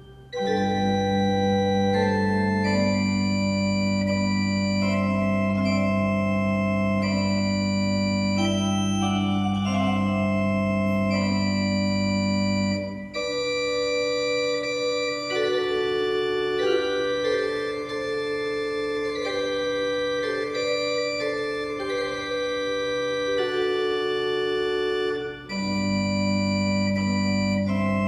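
Church organ playing slow, sustained chords over a held low pedal note. The pedal note drops out about halfway through and comes back near the end.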